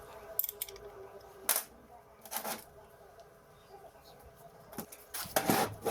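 Knocks and clinks of metal parts being handled, a few single ones early and a louder cluster of clatter near the end, over a faint steady hum.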